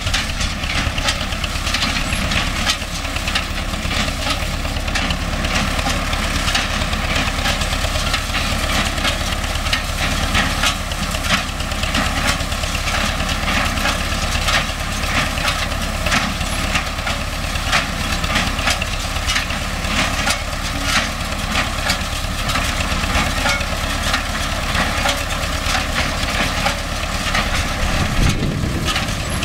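MTZ-5LS tractor's diesel engine running steadily while driving a hay baler, with continual irregular clattering and knocking from the baler's mechanism.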